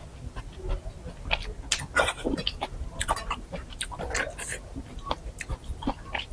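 Close-miked eating sounds: a person chewing a mouthful of mohinga, with irregular wet smacks and short clicks, a few each second.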